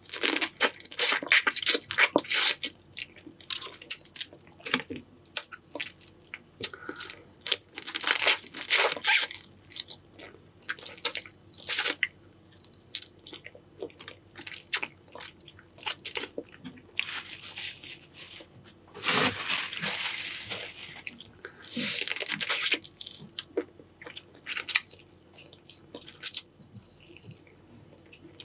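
Close-up eating of a Cajun-sauce seafood boil: irregular crunching and chewing with many sharp clicks, and louder crunching bursts every few seconds.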